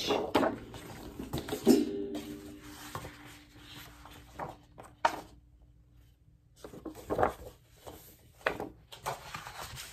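Sheets of stiff double-sided patterned scrapbook paper being handled and flipped: rustling, flapping and light knocks of the paper. A steady low hum sounds for about three seconds in the first half.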